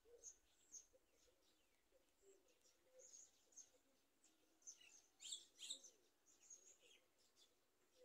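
Faint high-pitched bird chirps, many short calls scattered throughout, with the loudest few about five to six seconds in.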